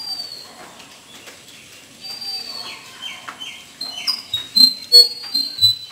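Small birds calling: short high whistled notes and quick downward-slurred chirps, more of them toward the end. A few sharp clicks in the second half are the loudest sounds.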